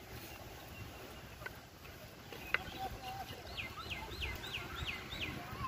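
A bird calling: a quick run of six falling whistled notes, about three a second, over low background noise. A single sharp click comes just before the calls.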